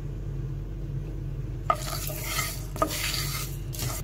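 Whole coriander seeds, cumin seeds and black peppercorns being dry-roasted without oil and stirred with a wooden spatula: the seeds scrape and rattle over the pan from a little before halfway on, with one sharp click. A steady low hum runs underneath.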